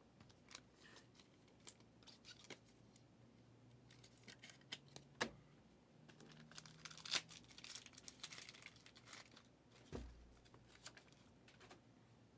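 Faint crinkling and tearing of trading-card pack wrappers, with light clicks and rustles of cards being handled, busiest in the middle, and a dull thump near the end.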